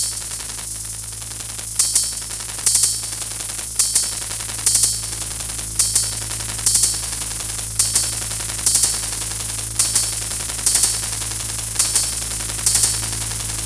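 Drone-and-noise industrial electronic music from hardware synthesizers and drum machines: a steady low synth drone under a constant hiss, with a noisy high percussion hit about once a second.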